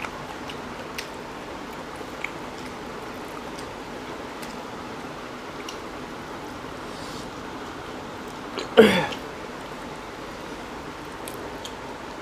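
People eating rice and chicken curry by hand: faint chewing and squishing with small mouth clicks over a steady hiss. About nine seconds in comes a short voiced sound rising in pitch.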